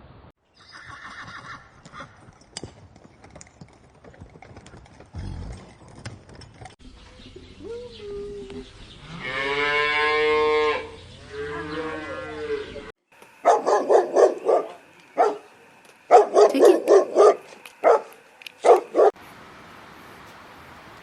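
A run of animal calls: short pulsed calls early on, one long drawn-out wavering call about halfway through, then a dog barking many times in quick bursts.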